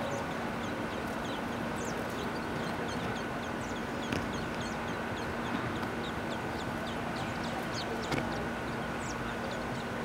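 Outdoor backyard ambience: birds chirping again and again in short, high, quick notes over a steady hum, with a few brief knocks.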